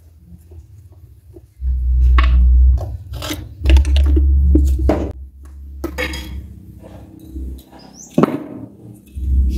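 Metal tool knocking and scraping against an electric water pump's motor end cover and housing as the motor is taken apart, with a run of sharp clicks and heavy low thumps from the parts being handled.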